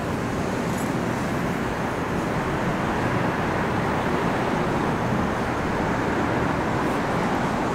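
Steady city traffic noise: a constant wash of passing cars and street din, swelling slightly mid-way.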